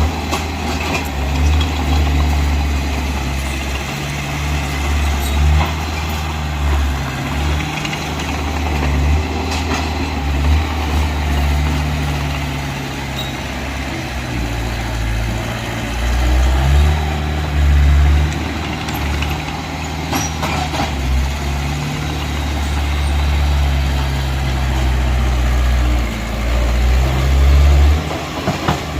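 Heavy diesel engine of earthmoving machinery running, its load rising and falling, with a few sharp metallic knocks.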